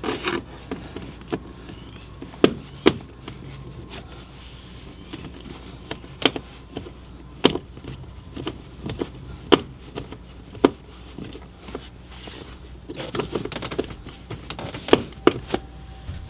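Scattered sharp clicks and knocks of a screwdriver working the screws holding a blower fan motor under a van's dashboard, with a short patch of rattling near the end, over a steady low hum.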